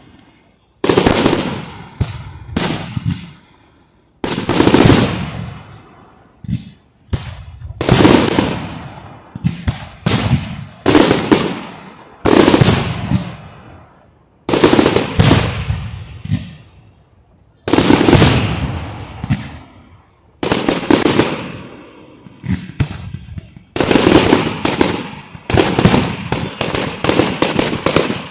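Aerial fireworks bursting: loud bangs one after another, about one every second or two, each trailing off, with a faster run of bangs near the end.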